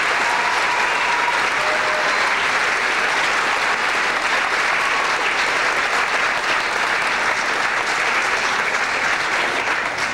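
Audience applauding steadily, just beginning to die away at the very end.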